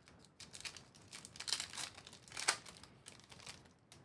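Trading-card pack wrapper crinkling in the hands, a run of short rustles with the loudest about two and a half seconds in.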